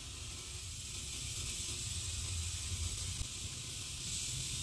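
Steady background hiss over a low, uneven rumble. Threading the rod in by hand makes no distinct sound of its own.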